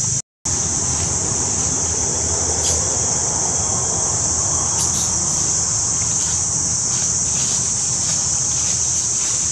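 Steady, high-pitched insect drone, with a low rumble underneath and a few faint ticks; the sound drops out for a moment right at the start.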